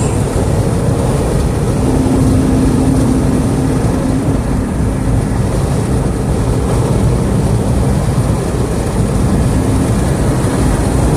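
Steady road and wind noise of a car being driven, deep and rumbling, with a faint hum that comes in about two seconds in and fades a few seconds later.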